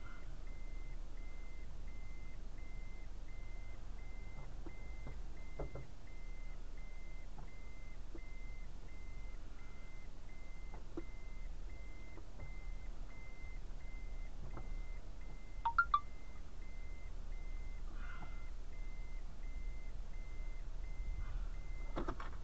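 Car cabin sound picked up by a dashcam: a low steady engine rumble, with a faint beep repeating about twice a second throughout. A brief, sharper double chirp comes about two-thirds of the way in.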